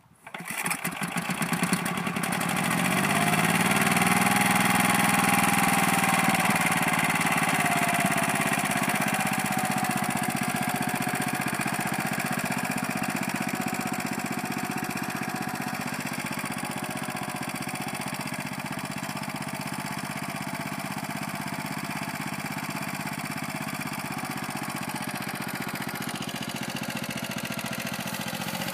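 Lombardini Intermotor LA400 single-cylinder engine of a Nibbi AE 11 two-wheel tractor starting, catching at once and revving up over the first few seconds, then running steadily under load as the tractor pulls a single-furrow plough.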